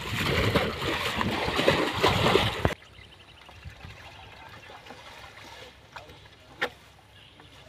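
Water splashing and churning as people wade and drag a fishing net through a shallow pond, with voices calling over it. It cuts off abruptly under three seconds in, leaving a quiet background with faint rapid ticking and one sharp click near the end.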